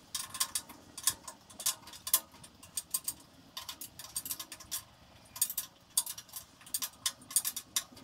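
Ratchet wrench clicking in quick runs of sharp ticks, several a second, as the bandsaw table's mounting bolts are tightened.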